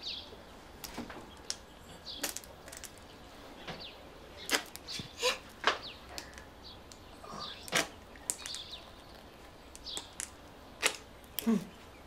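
A plastic ketchup bottle squeezed in short spurts, giving a scatter of brief squirts, clicks and swishes with pauses between them.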